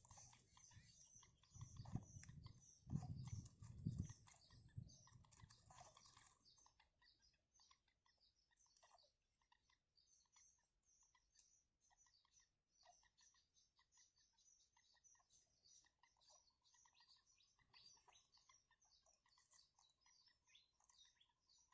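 Small birds chirping faintly in many short, high calls, with a few louder low thumps about two to four seconds in.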